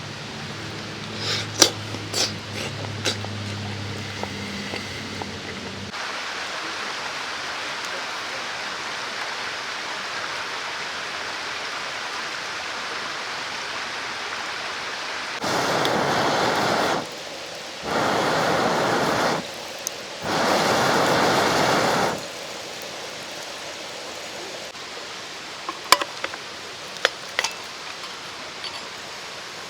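Mountain stream running steadily. Three louder rushing noises of a second and a half to two seconds each come in the middle, with a low hum and a few sharp clicks in the first few seconds and more clicks near the end.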